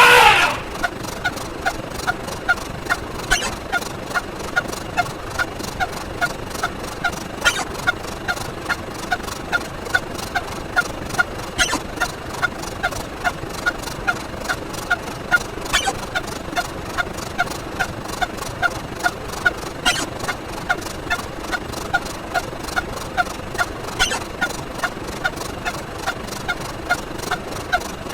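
A short sound effect repeats quickly and evenly, about two to three times a second, once for each step of the count. A sharper click cuts in about every four seconds.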